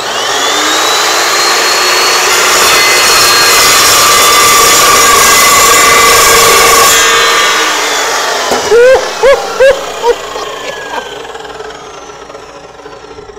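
Evolution S355MCS metal-cutting miter saw starting up with a rising whine, its carbide-tipped blade cutting through a solid 1 inch by 1/2 inch steel bar in one pass, loud and steady for about seven seconds. After the cut the blade spins down with a slowly falling whine, broken by three short, loud pitched cries about nine seconds in.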